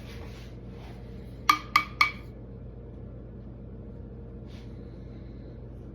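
Three quick clinks of a glass object, each with a short ringing tone, about a quarter second apart.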